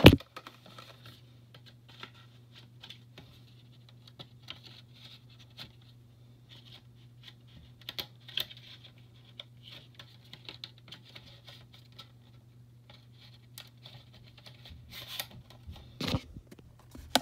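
Faint, scattered light clicks and rustles of handling over a steady low hum, with a sharp click at the start and louder clicks about fifteen to sixteen seconds in.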